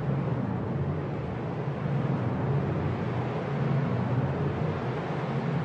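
Modular synth patch run through a Noise Engineering Imitor Versio delay: a dense, low, noisy wash of delay feedback with no distinct notes, shifting a little as a knob on the module is turned.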